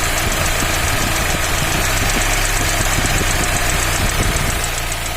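Fiat Uno Evo Fire 1.4 engine idling warm with the radiator fan running, with a light, fast, even ticking from the top of the engine. The mechanic traces this ticking to play in the cylinder head's tappet bores; the valve clearances checked out fine.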